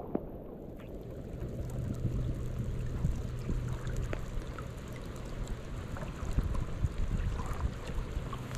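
River water flowing, with a low steady rumble underneath and a few faint scattered ticks.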